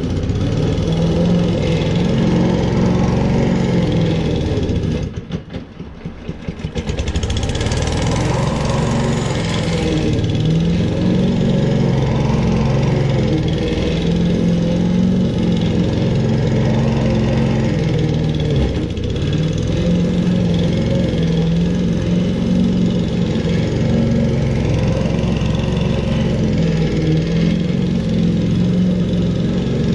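Walk-behind rotary petrol lawn mower running steadily as it is pushed back and forth through slightly overgrown grass. Its sound dips briefly about five seconds in, then comes back to full.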